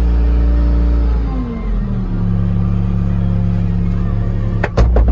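Skid steer engine heard from inside the operator's cab, running at high revs and then dropping to a lower steady speed about a second and a half in as the throttle is eased off. A couple of sharp knocks come near the end.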